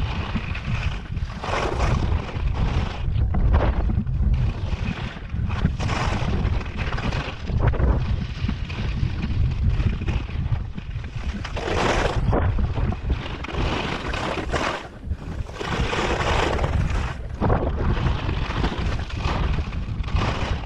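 Skis carving turns down steep, firm snow: a hissing scrape of the edges on each turn, surging every second or two, over a constant rumble of wind on the microphone.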